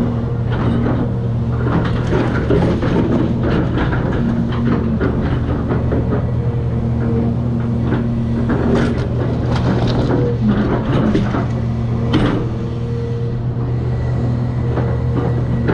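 Cat 336 excavator's diesel engine running steadily, with a whine that comes and goes and many cracks and knocks of demolition debris being broken and moved, one sharp knock about twelve seconds in.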